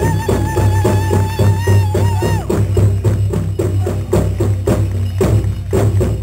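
Hoop dance music: a drum beaten in a fast, steady beat, with a high held note over it that ends about two and a half seconds in. The drum carries on alone and stops at the very end.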